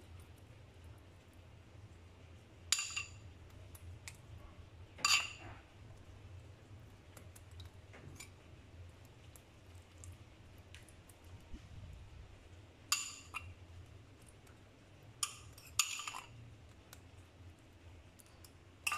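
About five sharp, ringing clinks of a metal spoon striking dishes while tomato sauce is spread over pizza dough, over a faint steady low hum.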